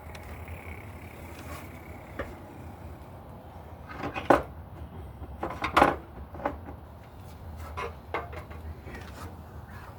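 Small hard parts and tools being handled, clinking and clattering a few times. The loudest knocks come about four and six seconds in, over a steady low hum.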